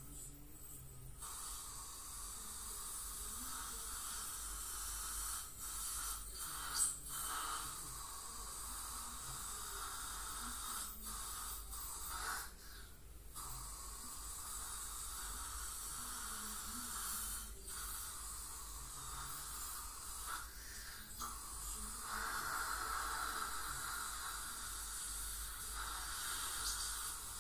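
Ultrasonic dental scaler running against the teeth with its water spray: a steady hiss that cuts out briefly several times. A short sharp click about seven seconds in.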